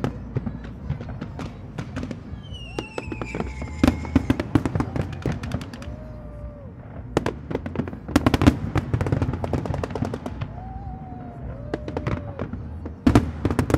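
Aerial fireworks display: rapid, dense crackling and bangs of bursting shells that ease off twice and come back in a sudden thick flurry near the end. About three seconds in, a falling whistle sounds over the crackle.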